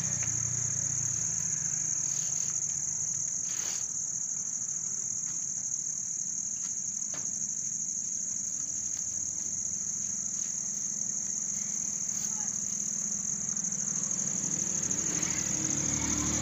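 Crickets chirring in a steady, high-pitched chorus that never breaks, over a faint low hum and a couple of soft clicks.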